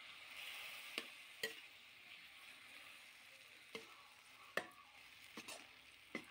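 A perforated metal spatula stirring tomatoes, onion and bamboo shoots frying down in a metal kadhai. There is a faint sizzle, and the spatula clicks against the pan about six times.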